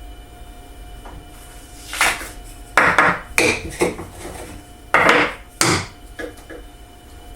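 Cut wooden pieces being handled on a hard surface: a run of short wooden knocks and scrapes, the loudest about three and five seconds in.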